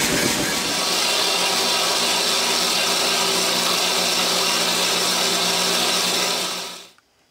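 Gas forge burner running for under a second, then a JET horizontal metal-cutting band saw running steadily, its blade cutting through a steel flat bar with a hum and high hiss. The sound fades out near the end.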